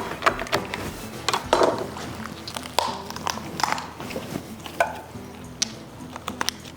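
Cutting through a raw bone-in turkey breast along the rib cage: irregular crunches, snaps and clicks of a blade through bone and cartilage, over steady background music.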